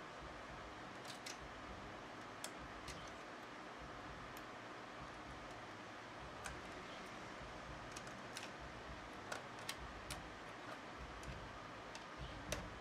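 Scattered light clicks and taps of small plastic and metal parts of a Sony NX5 camcorder lens assembly being handled and fitted together by hand, over a steady faint hiss.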